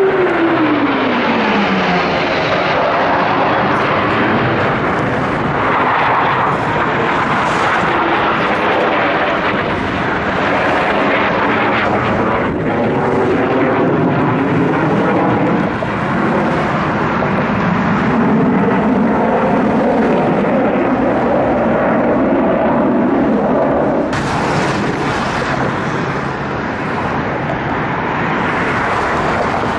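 Jet engine noise from U.S. Navy Blue Angels F/A-18 Hornets making low passes, loud and continuous. The pitch falls steeply in the first two seconds as a jet goes past, and sweeping, shifting tones follow as the aircraft move across the sky.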